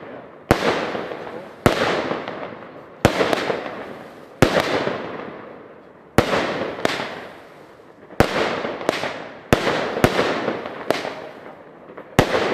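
Fireworks going off in a steady barrage: a sharp bang about every second or so, each followed by crackling that fades over about a second.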